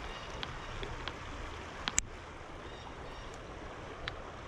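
Steady rush of flowing creek water, broken by a few small sharp clicks, one louder click a little before the middle.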